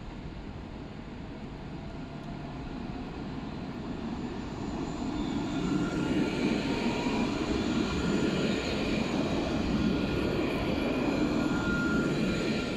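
Alstom Citadis tram passing close by: a rumble of wheels on rail with a steady whine of several tones from its electric drive, growing louder as it nears.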